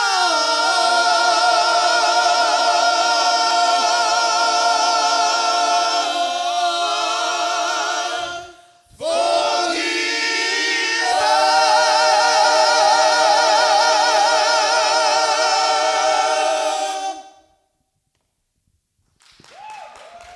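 Gospel choir singing a cappella, holding long chords with vibrato; a brief break about eight seconds in, then the song's closing chord is held and cut off together about seventeen seconds in.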